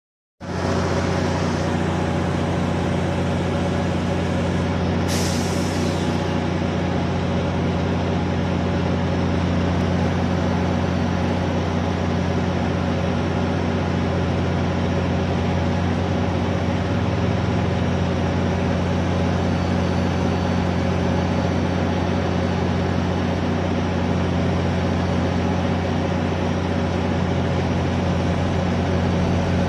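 A GO Transit MP40PH-3C locomotive's EMD 710 diesel prime mover running steadily and loud at close range, with a deep, even drone. A short hiss of released air cuts in about five seconds in.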